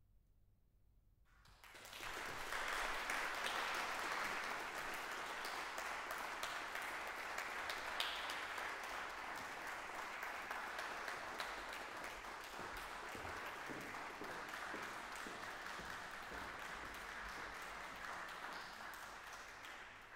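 About a second and a half of near silence, then an audience breaks into applause that goes on steadily, easing off a little near the end.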